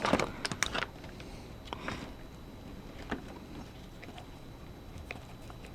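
Small screwdriver working a very tight screw on a plastic speaker's battery cover: a quick run of small clicks and scrapes, then a few scattered ticks as the screw is turned.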